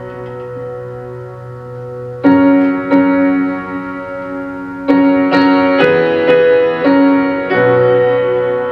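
Solo piano music played back through car-audio speakers. A held chord dies away, then a chord is struck about two seconds in, followed by a run of chords in quick succession from about five seconds in.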